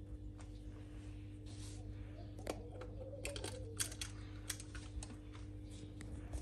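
Faint, scattered light clicks and taps over a steady low electrical hum.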